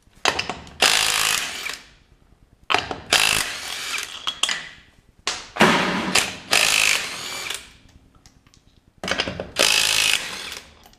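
Handheld cordless power tool with a socket spinning lug nuts off a car wheel, running in four separate runs of one and a half to two seconds each, with short pauses between them.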